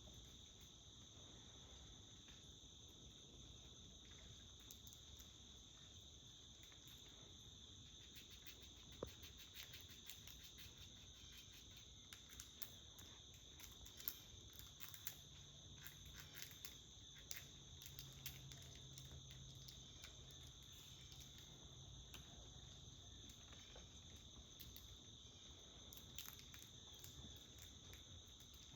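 Faint, steady insect chorus: two even, high-pitched drones that never stop. Scattered small clicks and ticks come through in the middle stretch, with a faint low hum for a few seconds.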